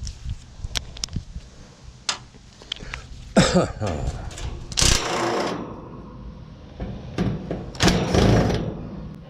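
Handling noise: scattered clicks and knocks, with three louder clattering spells a little over three seconds in, about five seconds in and near the end.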